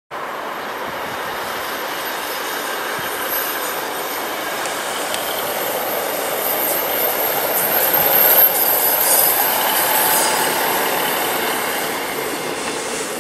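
Two-car East Midlands Railway Regional diesel multiple unit passing, its engine and wheels growing louder to a peak about two-thirds of the way through and then easing off, with a few clicks from the wheels around the loudest moment.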